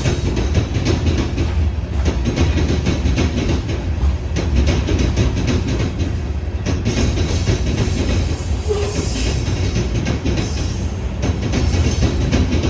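Union Pacific freight train of two-bay covered hopper cars rolling past, a steady heavy rumble with the wheels clacking over the rail joints.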